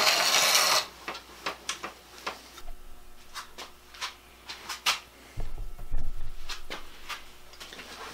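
Plane blade in a jig being ground on a treadle-driven sandstone wheel, a loud grinding hiss that stops under a second in. After it, scattered light clicks and knocks of the blade and jig being handled, with a low rumble around the middle.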